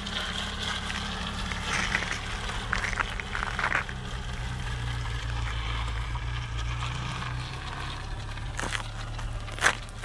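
Lowered VW Passat B3 estate rolling slowly at low revs: a steady low engine hum, with short bursts of scraping, a 'szur szur' of the tyres rubbing on the wheel arches at this ride height. Two sharp clicks near the end.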